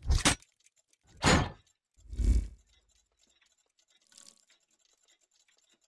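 Logo-reveal sound effects: a short whoosh about a second in, then a heavy hit with a deep thud a second later, and a faint shimmer near four seconds.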